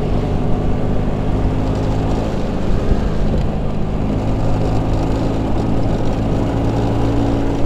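Vespa PS 150's two-stroke single-cylinder engine running at a steady cruising speed while riding, with wind rush over the microphone.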